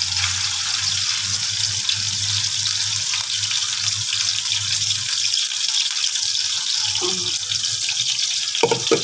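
Blended chicken frying in hot oil in a nonstick wok: a steady sizzling hiss, with a low hum underneath.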